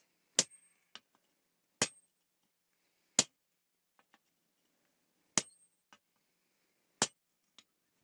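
Hand hammer striking iron held in tongs on a steel-block anvil during forging: five heavy blows at an unhurried, uneven pace, a few followed by a lighter tap, some leaving a brief high ring.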